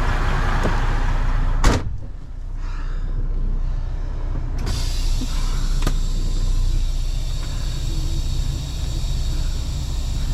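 Semi truck's diesel engine idling while its air suspension is dumped. A sharp click comes about two seconds in, and a steady hiss of escaping air starts about halfway through.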